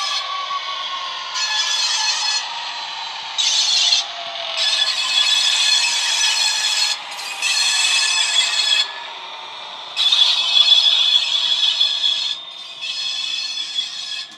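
Model Class 67 diesel locomotive running on a DCC sound decoder loaded with a Class 66 sound file, its engine note falling in pitch over the first few seconds. Over it come repeated loud bursts of scraping hiss, each one to two seconds long, as the train passes.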